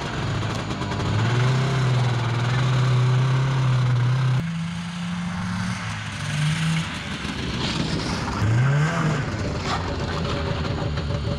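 1980 Yamaha Enticer 300 snowmobile's twin-cylinder two-stroke engine revving as it pulls away across the snow, the pitch climbing. About four seconds in the sound changes abruptly. A little past the middle it revs up once more and then settles back down.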